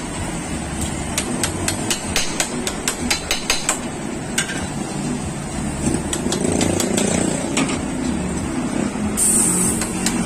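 A quick run of sharp metallic clicks or taps, several a second, for about three seconds over a steady low workshop hum. In the second half a louder low rushing noise takes over, with a short high hiss near the end.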